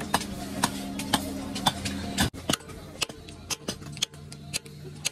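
Hammer blows on a steel chisel being driven into a scrap electric motor's stator to cut out the copper windings, sharp metallic strikes about twice a second. A low steady hum underneath cuts off a little over two seconds in.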